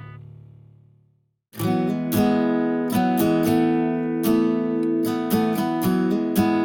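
Background music: one track fades out, and after a brief gap a new song begins with strummed acoustic guitar chords.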